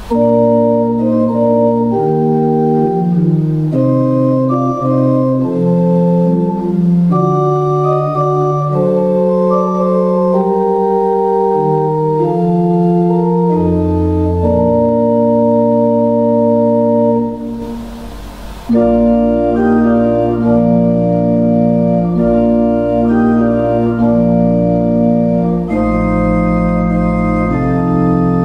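Church pipe organ playing a slow piece of held chords over a bass line. There is a short break between phrases about two-thirds of the way through, then the chords resume.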